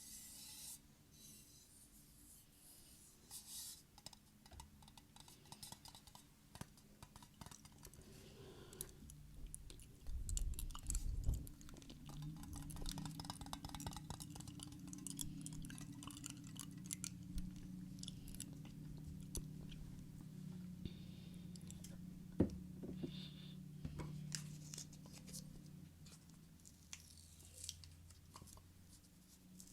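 Close-miked ASMR trigger sounds: a dense run of small crisp clicks and crackles, with a few heavier thumps about ten seconds in and a low steady hum under the middle stretch.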